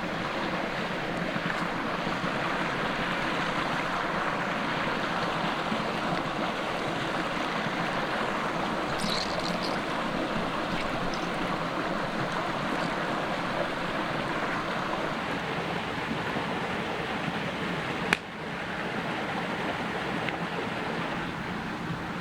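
Creek water rushing steadily, with a single sharp click near the end.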